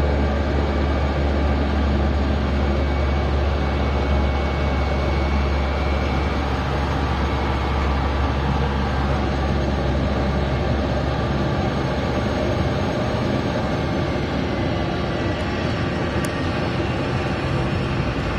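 Cessna 208 Caravan's Pratt & Whitney Canada PT6 turboprop engine and propeller running loud and steady, heard inside the cockpit as the aircraft rolls along the runway after touchdown. The deep low part of the sound eases off about two thirds of the way through.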